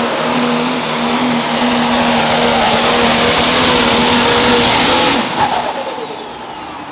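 Pro stock pulling tractor's turbocharged diesel engine running loud and steady at full power. About five seconds in it drops off sharply and its pitch falls away.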